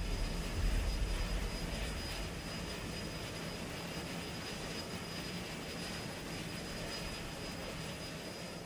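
Steady rushing drone of a jet airliner's engines in flight, with a faint high whine; the low rumble is heaviest in the first couple of seconds, then the noise eases and slowly fades.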